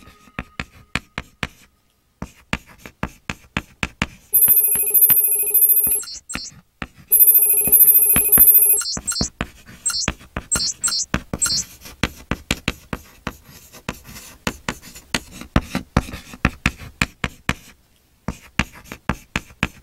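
Chalk tapping on a blackboard in quick, regular strokes. Twice, about 4 and 7 seconds in, a handheld electronic device gives a loud steady ring of about a second and a half, followed by a few short warbling chirps.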